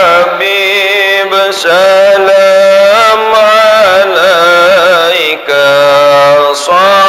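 A man singing an Islamic devotional sholawat, unaccompanied, into a microphone: long held notes with wavering vibrato and melismatic ornaments, broken by short pauses for breath.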